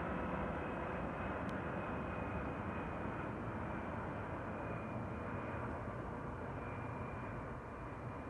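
Boeing C-17 Globemaster III's four turbofan engines as the jet flies over: a steady rumbling jet noise with a faint high whine, slowly fading as it moves away.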